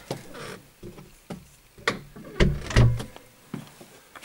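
Scattered clicks and knocks in a small room, with two heavier low thumps about two and a half seconds in.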